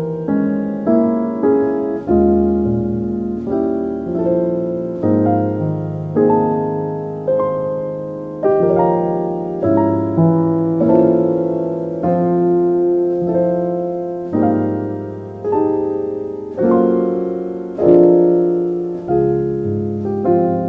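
Slow, gentle solo piano music, notes and chords struck about once a second and left to fade.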